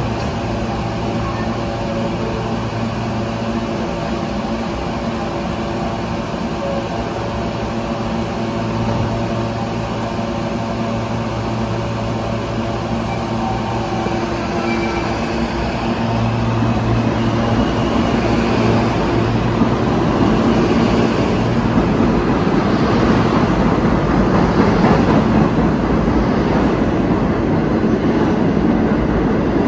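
A New York City subway train standing at the platform, its equipment humming steadily. About halfway through, another subway train runs into the station, and the rumble and rattle of its wheels on the rails grow steadily louder.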